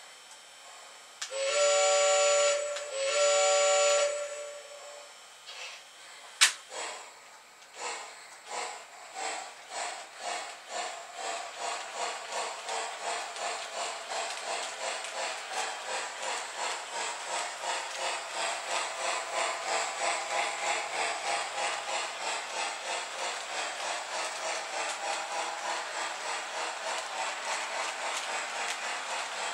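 Lionel LionChief Plus O gauge Mikado steam locomotive's onboard sound system: two long steam-whistle blasts, the signal for a train to move off, then a sharp clank and steam chuffs that start slow and quicken to about three a second as the locomotive pulls its train away.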